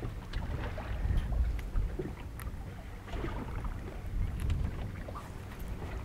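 Wind rumbling on the microphone over water lapping against a small boat's hull, with scattered light ticks and knocks.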